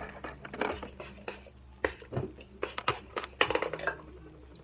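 Irregular clicks and light clattering of small objects being handled close by, with faint music in the background.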